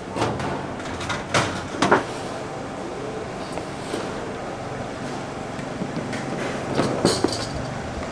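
Work sounds at a youtiao stall: a few sharp knocks and clatters over a steady low hum and hiss.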